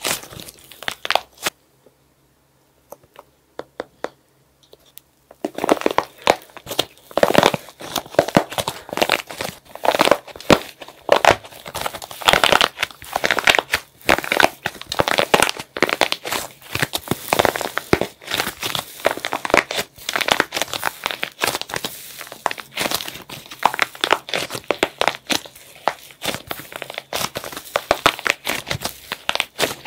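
Dried plaster shell on soft clay cracking and crunching as hands squeeze and knead it: dense, crisp crackles and snaps of breaking plaster. About a second and a half in, the crackling stops for about four seconds of near silence, then picks up again.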